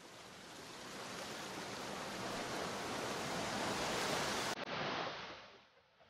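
Ocean surf: the rush of a breaking wave swells for about four seconds, then dies away near the end.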